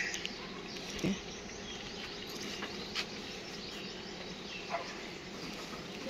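Quiet outdoor background: a steady hum with a few faint short chirps, and a few light clicks, the loudest about a second in.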